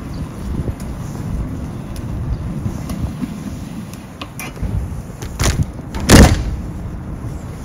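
Wind buffeting a handheld microphone while walking, a low uneven rumble, with a loud short bump about six seconds in.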